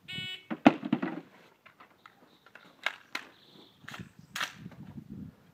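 Electronic shot timer's start beep, one short tone, followed by knocks and clicks as an AR-style rifle is picked up off the table and readied. The loudest knock comes just after the beep.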